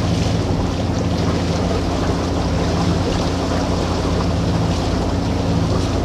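A sailing yacht's inboard diesel engine running at a steady drone, mixed with rushing wind and water.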